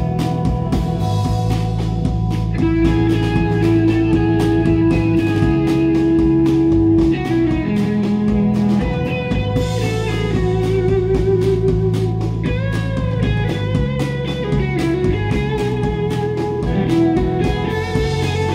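Live rock band playing an instrumental passage. An electric guitar holds long notes, some of them wavering and bending, over bass and a steady drum beat.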